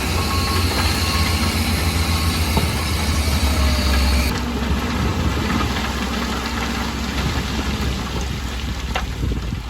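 Heavy diesel engine of an earthmoving machine running steadily, with strong low-pitched engine sound. About four seconds in the sound changes abruptly and the high hiss drops away.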